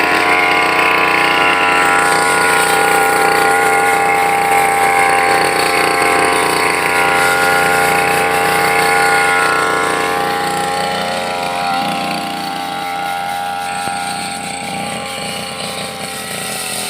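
Brush cutter engine running steadily at high speed, growing a little quieter and lower in pitch in the second half.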